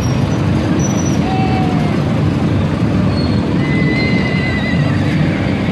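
A horse whinnying, with a few thin wavering cries, over a steady low rumble of a truck engine.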